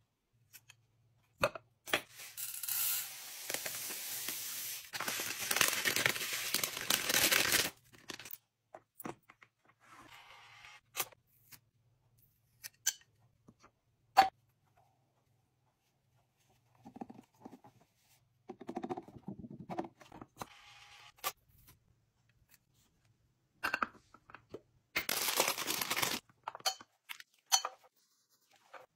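Pantry restocking sounds: glass storage jars with bamboo lids being handled on a stone counter. There are two long stretches of rustling, tearing noise, one in the first quarter and one near the end, with scattered knocks and one sharp clink about halfway through.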